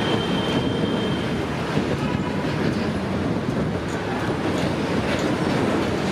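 Multiple EMD WDG4 diesel-electric locomotives, two-stroke V16 engines, running under load as they haul a steel freight train, a steady deep rumble mixed with wheel and wagon clatter. A faint high wheel squeal sounds in the first second or so.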